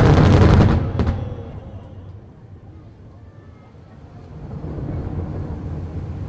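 A firework shell bursting with a loud boom and crackle at the start, rolling off over about a second. A low background din rises again from about four and a half seconds in.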